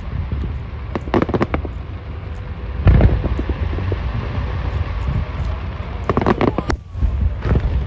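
Fireworks exploding in rapid succession: sharp cracks and pops in clusters, with a heavy boom about three seconds in, over a continuous low rumble of bursts.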